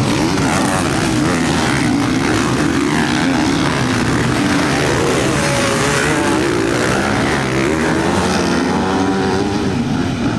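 Several motocross bikes racing together, their engines revving up and down with overlapping, wavering pitches.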